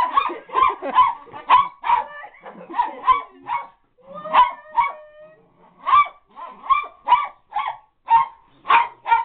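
Small black-and-white dog barking excitedly in quick, short barks, about two a second, with a short pause a little past halfway.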